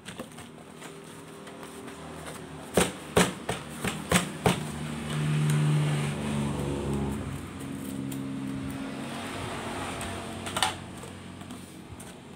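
A cardboard box being handled and taped up: a quick series of sharp knocks and taps of the box, then a long drawn-out pitched rasp of packing tape being pulled and pressed onto the box, and one more knock near the end.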